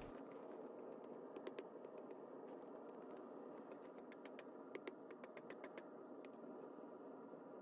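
Near silence: a low hiss with scattered faint, sharp clicks, a quick run of them about two thirds of the way through.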